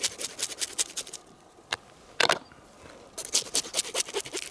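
Quick scraping strokes of fish being cleaned, in two runs, with a single louder knock a little past two seconds in.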